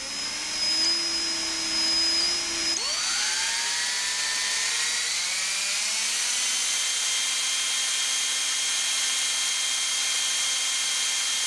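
Electric drill running with no load, a tiny drill bit shimmed into its chuck with wire and spinning without wobble. The motor runs at a lower speed at first, then climbs in pitch as it is brought up to a higher speed about three seconds in, and holds a steady whine from there on.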